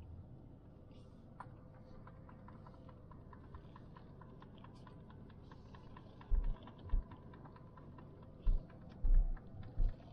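Inside a Hyundai i20 rolling slowly along a rough dirt track: a low steady cabin hum with a rapid, even ticking of about five a second through most of it, and several dull low thumps in the second half as the car jolts over the ruts.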